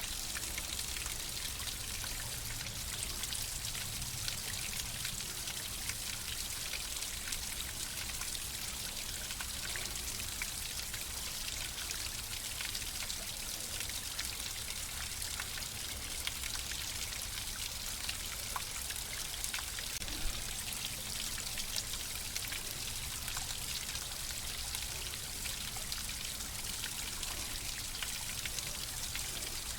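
Flowing water running steadily, with a dense patter of small splashes and droplets over a low rush.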